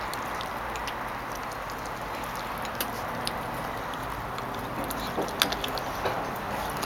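Yellow Labrador puppy gnawing a raw chicken leg: scattered small clicks and crunches of teeth on bone, with one sharper crack about five and a half seconds in, over a steady background hiss.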